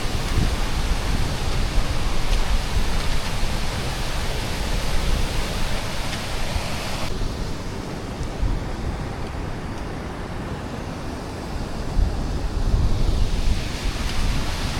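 Steady rushing noise with wind buffeting the microphone in a fluctuating low rumble; the hiss thins out suddenly about halfway through.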